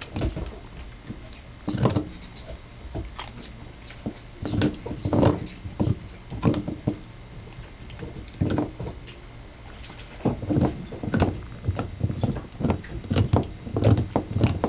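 A basset hound chewing and gnawing on a dog chew: irregular smacks and crunches, some coming in quick runs.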